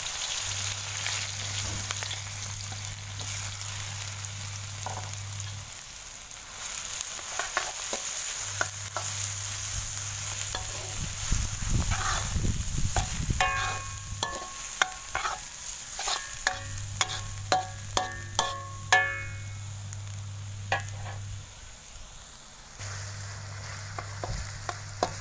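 Chopped onions sizzling in hot oil in a metal kadhai, stirred and scraped with a metal slotted ladle. About halfway through, the ladle strikes the pan a dozen or so times in quick succession, each strike ringing briefly.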